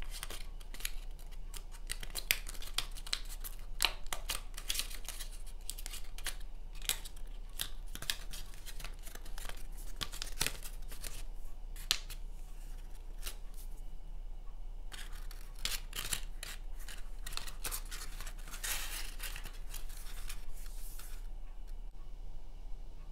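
Origami paper crinkling and rustling under the fingers as the leaves of a paper four-leaf clover are pinched, creased and shaped: a quick, irregular run of crisp crackles and scrapes that stops near the end.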